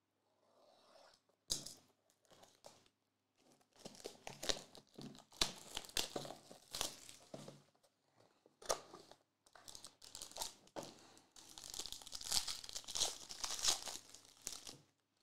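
Sealed trading-card packaging being cut and torn open, then a foil card-pack wrapper crinkling and tearing. Irregular rustling bursts start about four seconds in and grow densest near the end, after a single click about a second and a half in.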